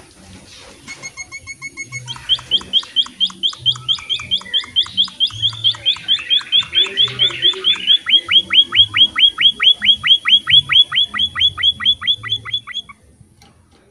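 Small finch of the kind sold as emprit singing: a few buzzy notes, then a long fast series of short down-slurred notes, about five a second, growing louder and stopping near the end.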